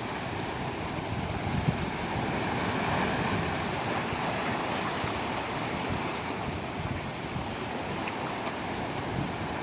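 Ocean waves washing on the shore, with wind buffeting the microphone: a steady surf noise that swells gently and eases back.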